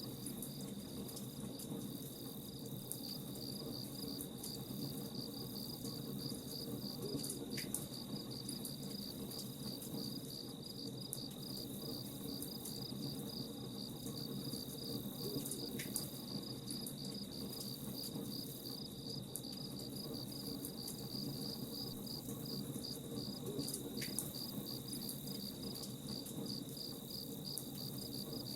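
Crickets chirping steadily in a fast, even pulse over the low hiss and crackle of a campfire, with a sharp pop every several seconds.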